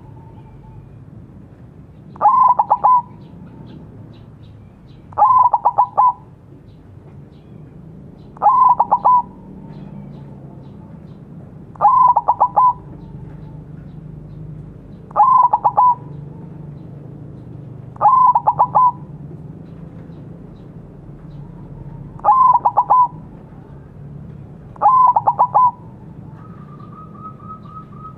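White zebra dove (perkutut) singing its cooing song (manggung): eight stuttering coo phrases, each under a second long, repeated about every three seconds. Shortly before the end a brief steady trill sounds once.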